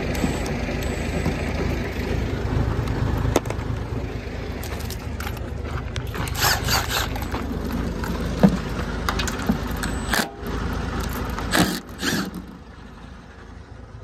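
Scrapes and clunks of metal grain-bin auger parts being handled, several short knocks spread through, over a steady low rumble that drops away near the end.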